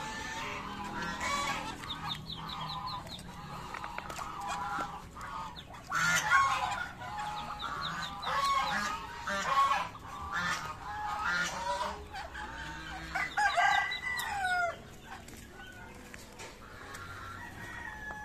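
Backyard chickens clucking and calling on and off, with a rooster crowing once about thirteen seconds in.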